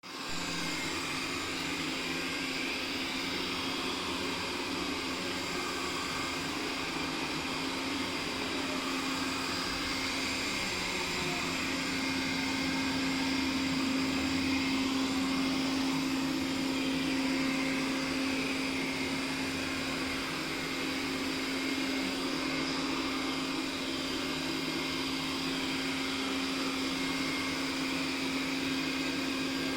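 Robot vacuum cleaner running: a steady whirring motor hum that grows a little louder for several seconds midway, then settles back.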